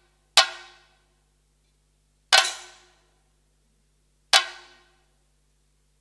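Three single strokes of chenda drums and ilathalam cymbals, about two seconds apart, each ringing out and dying away within half a second, with silence between them.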